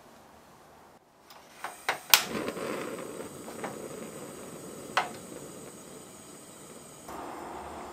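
Portable gas stove being lit: a quick run of sharp igniter clicks about a second and a half in, then the burner flame's steady low hiss under the saucepan. Two more single clicks follow, and the hiss steps up near the end.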